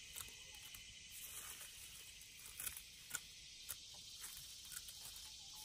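Faint, scattered snips and clicks of garden shears clipping herbs, at irregular intervals about half a second to a second apart, over a steady high background hiss.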